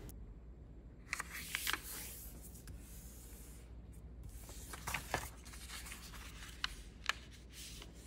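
A sheet of copy paper being folded into a triangle and pressed flat along the crease by hand: soft rubbing and rustling of paper sliding on a wooden tabletop, with a few sharp crisp paper ticks scattered through.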